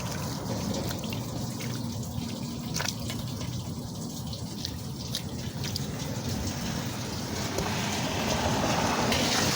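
Rainwater trickling and dripping into a street storm drain as mud and debris are cleared from its opening, with a few light splashes. A broad rushing noise swells near the end.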